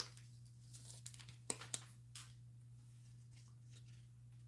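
Faint handling noise of trading cards, packaging and a clear plastic card holder: a few short clicks and crinkles, the sharpest about a second and a half in, over a steady low electrical hum.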